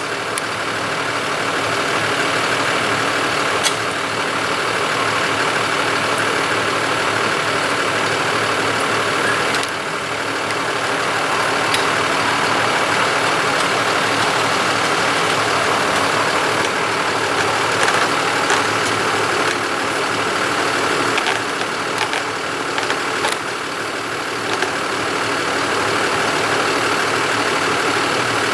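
A large engine idling steadily, with a few faint clicks and knocks over it.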